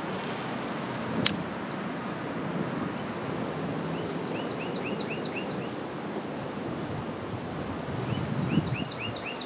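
Steady wind rush on the microphone, with a bird singing two runs of short repeated chirps, about four a second, around the middle and again near the end. A single sharp click about a second in.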